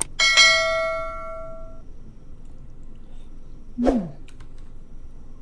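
A metal spoon strikes a bowl once with a sharp clink, and the bowl rings for about a second and a half. About four seconds in comes a short voice sound that falls in pitch.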